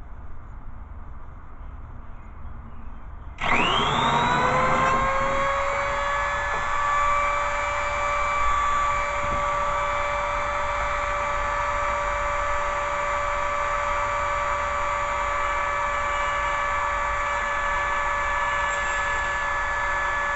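A Dremel rotary tool on a flexible-shaft extension, fitted with a cut-off wheel, switches on about three seconds in, spins up with a rising whine and then runs at a steady high-pitched whine.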